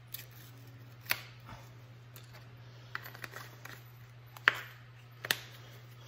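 Gloved hands handling a spice bottle of beef rub: a few sharp clicks and taps, the loudest about four and a half seconds in, over a low steady hum.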